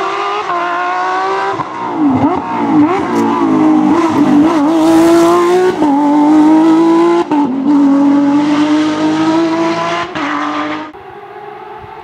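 Porsche 911 GT3 rally car's flat-six engine at full stage pace. It comes up, brakes with quick downshift blips, then accelerates away hard, the pitch climbing through the gears and dropping sharply at each upshift. Near the end the loud engine cuts off, leaving a fainter, distant engine.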